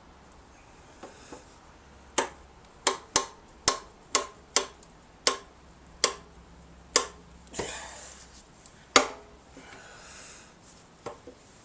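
Sharp knocks and clicks, about ten of them at uneven intervals, the loudest near the end, from work on a dented small sheet-metal gas tank to straighten it. A short scrape comes partway through.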